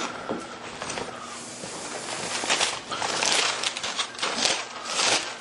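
Thin Bible pages rustling and crackling as they are leafed through to find a passage, with the rustling growing louder and busier about halfway through.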